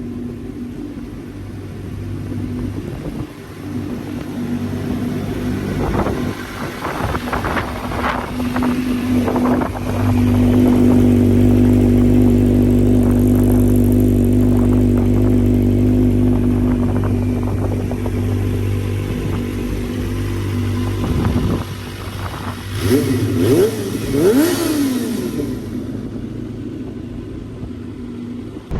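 Small sport motorcycle engine with a loud aftermarket exhaust running at a steady drone, with rising revs early on and a few quick rev blips near the end.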